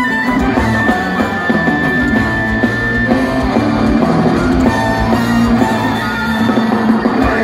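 Folk-metal band playing live through a festival PA: distorted electric guitars and drum kit with a violin, a high note held for about the first three seconds, with little or no singing.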